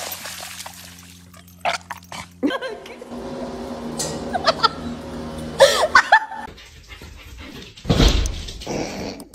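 A dog yelping a few times about halfway through, in short high cries that bend up and down in pitch. A loud burst of noise follows near the end.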